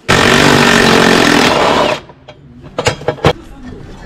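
Milwaukee FUEL cordless power tool running for about two seconds as it spins a socket on an undertray bolt, then stopping. A few sharp metallic clicks and clanks follow.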